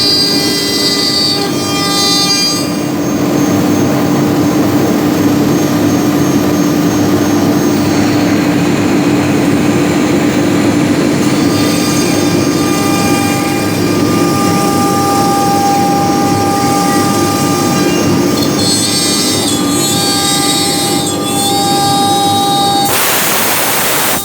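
CNC router running with a steady mechanical drone and high whine. A loud burst of noise comes near the end.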